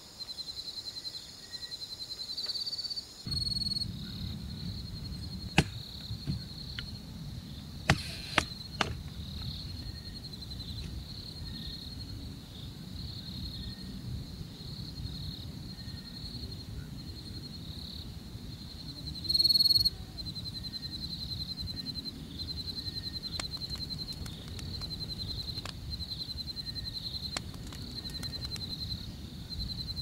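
Night insects trilling in a steady, high, fast-pulsing chorus, with scattered sharp clicks and snaps and a short louder burst about twenty seconds in, over a low rumble that starts about three seconds in.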